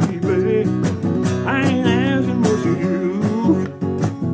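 Acoustic guitar strummed in a quick, steady rhythm, with a man singing over it and holding one wavering note about the middle.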